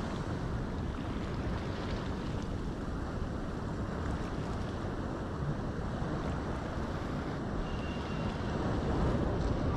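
Wind buffeting the microphone over the steady wash of sea surf, with no distinct events.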